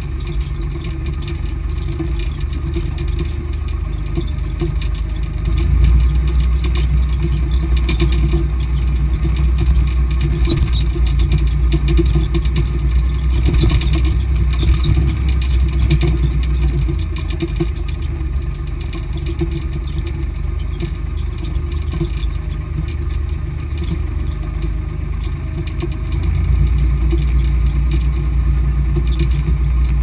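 Volvo BM 430 tractor's diesel engine running steadily under load while pulling a plough, heard from inside the cab. The engine note gets louder about six seconds in, eases off around seventeen seconds, and gets louder again near twenty-six seconds.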